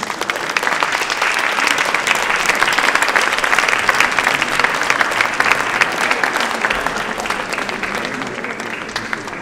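Audience applauding: a dense patter of many hands clapping that swells in the first couple of seconds and slowly tapers off toward the end.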